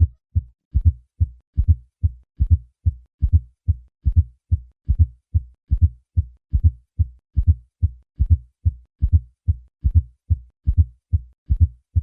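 Heart sounds with a fourth heart sound (S4 gallop): a regular beat of a little over one beat a second, each beat a faint, low-pitched extra thump in late diastole just before the first heart sound, followed by the second heart sound. The S4 is the sign of a stiff, non-compliant ventricle, often due to hypertrophy.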